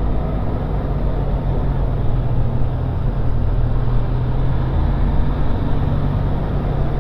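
Benelli TRK 502's parallel-twin engine running steadily while the motorcycle is ridden, with wind and road noise over the camera microphone.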